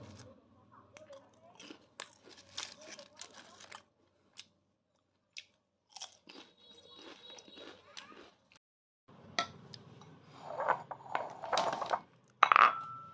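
Lay's potato chips crunching as they are chewed, in short crackly bursts. Near the end come louder handling noises and a ceramic bowl clinking with a brief ring.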